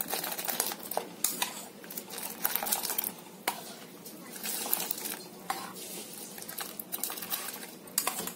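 Soaked sabudana (tapioca pearls) being tipped and scraped out of a steel bowl into a steel pot of boiling milk. Irregular metal clinks and scrapes sound throughout.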